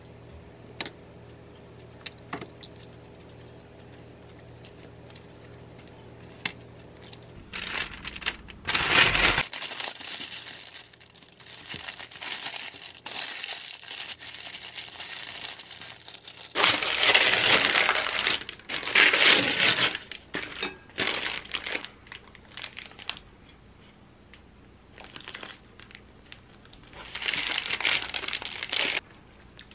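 Parchment paper crinkling and rustling in repeated bursts as a sandwich is wrapped in it and handled. Before that, a few faint clicks over a low steady hum.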